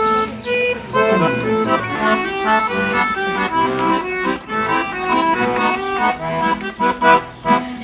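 Instrumental music: a lively melody of many short, quick notes over a steady lower accompaniment.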